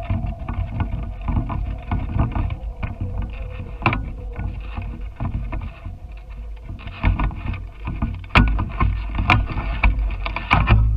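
Wind buffeting the microphone of a GoPro hanging from a kite in a camera cradle: a low rumble with frequent clicks and knocks from the swaying rig, sharper knocks near the end. A faint steady hum sinks slightly in pitch in the first few seconds.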